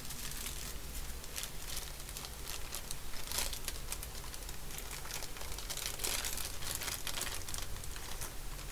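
Small plastic parts bag crinkling and rustling as it is handled, with irregular crackles coming and going.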